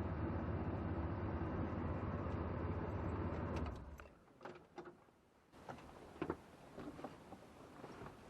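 Steady running noise from the S-10 Blazer with its heater blower on, which stops abruptly about four seconds in. A few light clicks and knocks follow.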